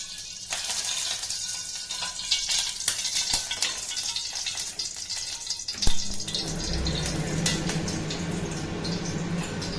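Hot cooking oil spitting and crackling in a pan that still had some water in it. A sharp knock comes about six seconds in, after which the crackling thins and a low steady hum runs underneath.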